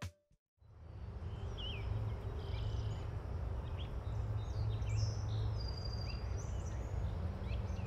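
Scattered short chirps and calls of small birds over a low steady rumble of outdoor background noise, beginning about a second in.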